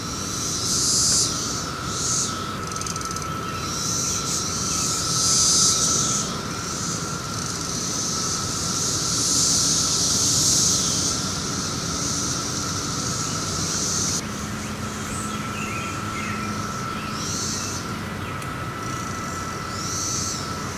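Brood X periodical cicada chorus: a steady, even drone with louder high-pitched buzzing that swells and fades every few seconds as nearby cicadas call.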